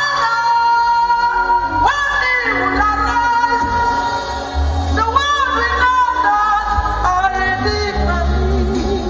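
A woman singing a gospel song live into a microphone, holding long notes with vibrato and sliding between some of them, over a live band with drums.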